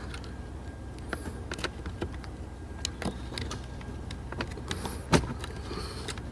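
Small plastic clicks and knocks as a wiring connector's clip is pressed and the plug worked off a car's headlight switch, with one sharper click about five seconds in.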